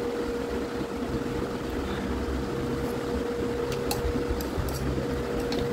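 Steady machine hum in the room, with one constant mid-pitched tone over a low rumble; a few faint clicks about four seconds in.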